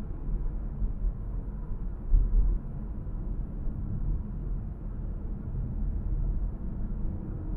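Steady low rumble of a car driving, road and engine noise, with a brief louder low thump about two seconds in.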